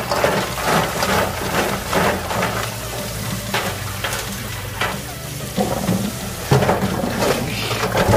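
Tap water splashing into a stainless steel bowl while gloved hands scrub a bowlful of whelks, the shells rubbing and clattering against each other and the bowl in repeated strokes, about one or two a second.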